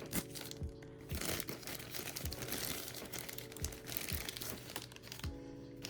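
Plastic packaging crinkling and rustling in irregular handfuls as blind-box figures are unwrapped by hand.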